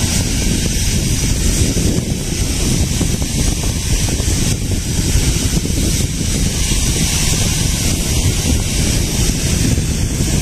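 Wind buffeting the microphone: a steady, loud low rumble with hiss.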